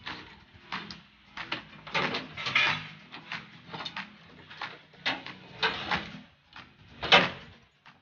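A metal rod scraping and sliding through metal carabiners and a chain hooked onto a washing machine's plastic tub, with irregular clanks and rattles. The loudest clank comes about seven seconds in.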